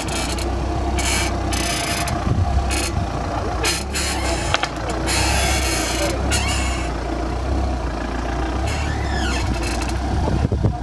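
Audi A4 B8 steering creaking as the steering wheel is turned, in repeated irregular bursts of scraping, creaking noise with a short squeal near the end, over the steady hum of the idling engine.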